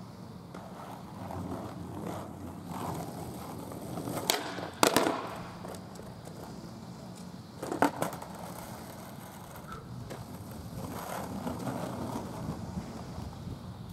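Skateboard wheels rolling on asphalt, with loud clacks of the board hitting the ground: two close together a little over four seconds in and another near eight seconds. The rolling starts again near the end.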